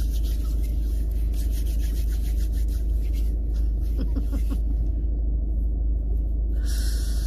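Steady low rumble of a car heard from inside the cabin, with faint voices about four seconds in.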